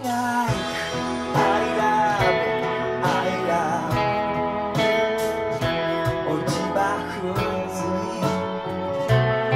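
Fender Stratocaster electric guitar played along with a full band backing track that has a steady drum beat. Some notes glide up and down, as in string bends.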